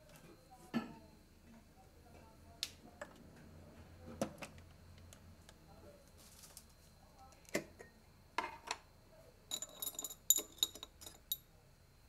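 Glass jars and kitchenware handled and set down on a counter: scattered light knocks and clinks, then a quick run of bright, ringing glass clinks near the end.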